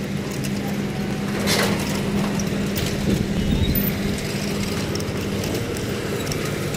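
Steady engine hum of street traffic, with scattered light mechanical ticking.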